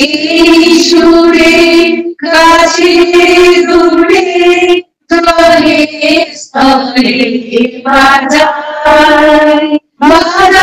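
A woman's voice singing a slow Bengali love song in long held notes, phrases of a couple of seconds separated by brief pauses, with little accompaniment.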